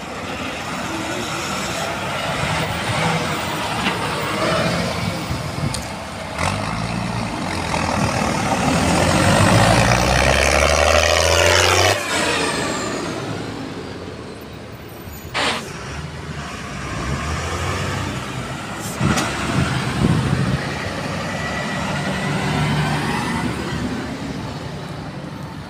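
Large diesel farm tractors driving past one after another. The engine sound builds to its loudest as a Mercedes-Benz MB-trac passes close about halfway through, and its pitch falls as it goes by. A single sharp knock comes a few seconds later.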